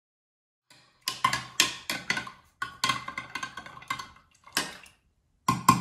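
A spoon stirring yeast and warm water in a glass jug, clinking against the glass in quick, irregular strikes, each ringing briefly. It starts just under a second in.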